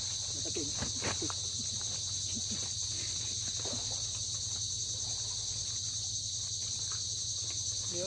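A steady, high-pitched insect chorus drones without a break. A few faint knocks and rustles sound in the first second or so.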